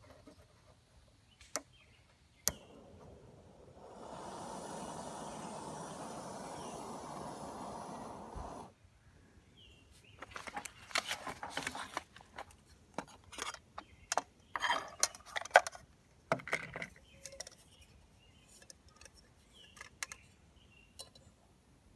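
Metal camping cookware and silverware being handled: clinks, knocks and clattering come thick for several seconds midway, with scattered clicks before and after. Early on a steady noise lasts about five seconds.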